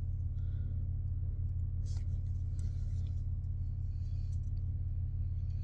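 Steady low hum of a car's engine idling, heard from inside the cabin, with a couple of faint clicks.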